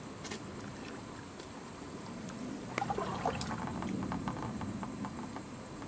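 Shallow creek water sloshing and splashing lightly as a person wades and reaches into it by hand, with a few small clicks and knocks of stones and debris about three seconds in.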